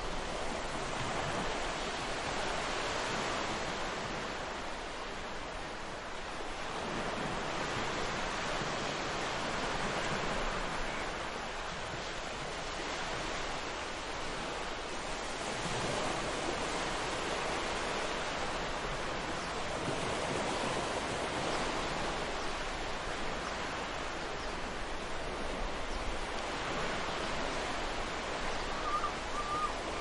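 Ocean surf washing onto a beach: a steady hiss of breaking waves that swells and eases slowly every several seconds.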